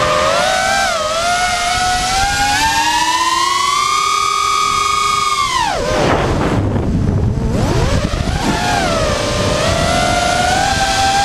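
FPV racing quadcopter's brushless motors and propellers whining, the pitch climbing steadily for several seconds, then falling away sharply about six seconds in as the throttle is pulled back, and rising again a couple of seconds later to a steady whine.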